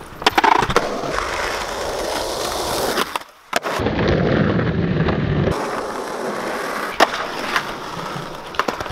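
Skateboard wheels rolling over stone plaza paving, with a short break about three and a half seconds in and a couple of sharp clicks near the end.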